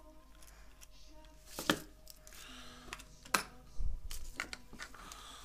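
Handling noise from a small plastic car clock unit being turned over and put down on a workbench. There are two sharp clicks about a second and a half apart, then a dull bump.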